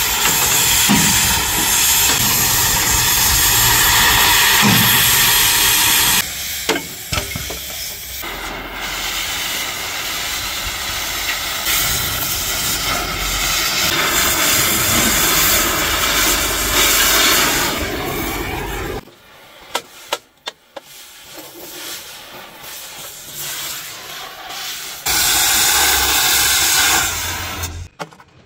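Gas cutting torch hissing steadily as its flame cuts through the steel of a truck chassis rail. The hiss drops away for several seconds partway through, leaving a few light knocks, then comes back briefly near the end.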